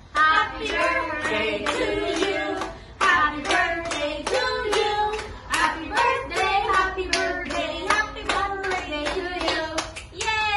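A small group, children among them, singing together while clapping along in a steady beat.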